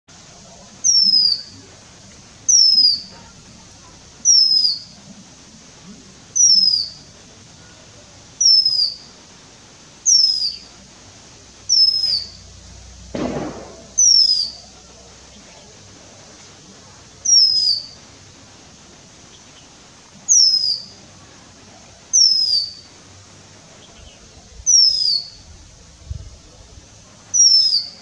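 Male Oriental magpie-robin calling: a single downward-sliding whistle repeated about every two seconds, thirteen times, with a longer pause midway.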